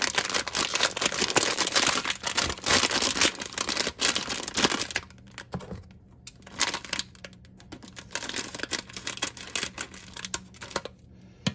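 Metallic foil blind-box bag crinkling and tearing as it is handled and opened. Dense and loud for the first five seconds, then sparser, quieter crinkles.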